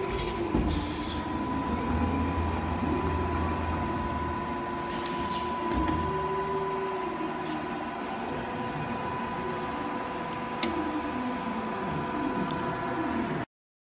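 Steady machine hum with a constant high-pitched whine, a lower tone that rises and falls, and a few light clicks. It cuts off suddenly near the end.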